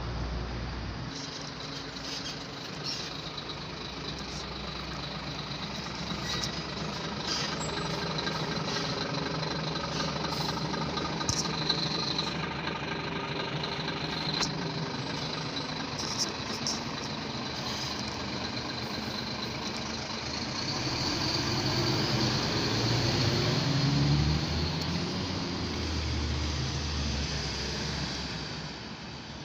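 Scania fire engine's diesel engine idling steadily, with a few brief sharp noises in the middle. About three-quarters through, a louder low engine rumble swells and fades.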